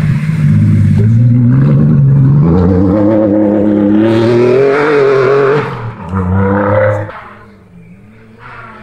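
Rally car engine pulling hard through a water ford, rising steadily in pitch with water spraying up around the car. It drops off, comes back briefly on the throttle, then fades away.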